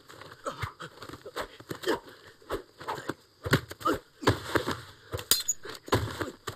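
Hand-to-hand fight sound effects: an irregular run of sharp punch and blow impacts, mixed with grunts of effort.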